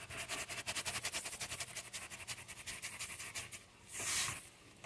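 Garlic salt rattling out of a plastic spice shaker shaken rapidly over a saucepan of melted butter, in many quick strokes for about three and a half seconds. Then a short hiss about four seconds in.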